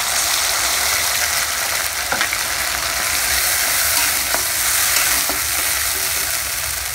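Hot oil sizzling steadily in a kadai as chopped tomato and a wet ground spice paste are fried and stirred, with a few light knocks and scrapes of the spatula against the pan.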